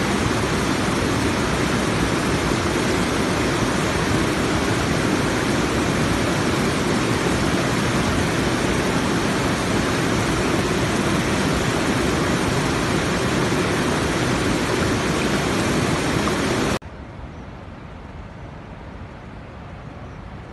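Bopath Falls waterfall: white water rushing and churning over boulders, a loud, steady wash of noise. It cuts off suddenly near the end, leaving a much quieter outdoor background.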